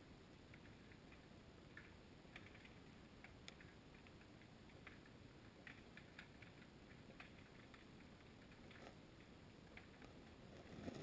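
Near-silent underwater ambience picked up by a GoPro in its waterproof housing: a faint low rumble with sparse, irregular little clicks, and a soft low thump near the end.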